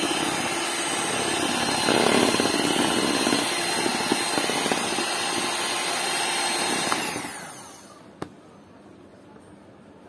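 Kenwood electric hand mixer running steadily as its beaters whip cake batter, then switched off about seven seconds in, the motor whine sliding down as it winds to a stop. A single sharp click follows.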